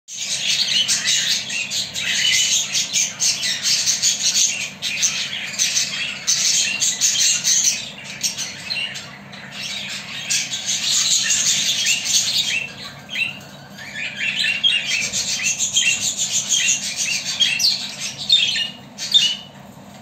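Budgerigar chattering: long runs of rapid chirps and squawks that ease off twice, then more separate chirps near the end before it stops.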